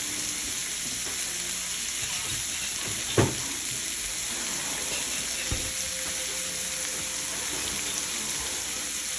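Sliced turkey sausage and onions sizzling steadily in a frying pan. A loud knock sounds about three seconds in, and a lighter thump a couple of seconds later.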